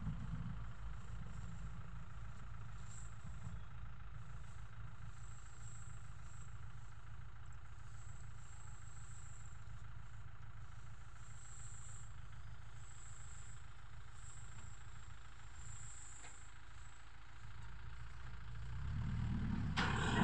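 Tractor engine running steadily while it drives a tractor-drawn baler packing rice straw into bales. The low rumble grows louder near the end.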